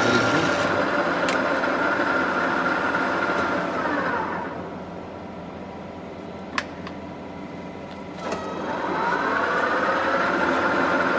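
TOS Trenčín SUI 32 lathe running with a steady whine, coasting down to a stop about four seconds in. A single sharp click comes during the pause, and the lathe starts up again, spinning back up to the same steady whine.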